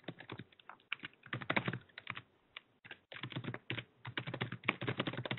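Typing on a computer keyboard: a quick run of keystrokes that thins out briefly about two seconds in, then picks up again.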